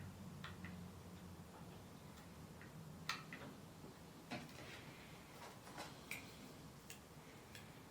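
Faint, irregular clicks and taps of handling a small device, about ten over a few seconds, the sharpest about three seconds in.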